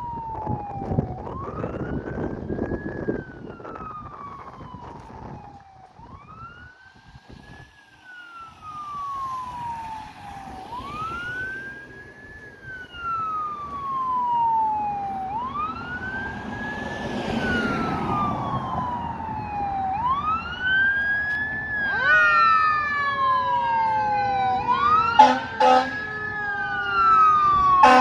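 Emergency vehicle siren wailing, each cycle a quick rise then a slower fall, growing louder as the fire apparatus approaches. In the last few seconds a second siren with faster sweeps joins in, with a few short loud horn blasts near the end.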